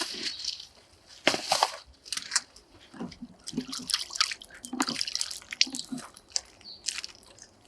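Water splashing and dripping from a wall-mounted washbasin as hands are washed, in short irregular splashes.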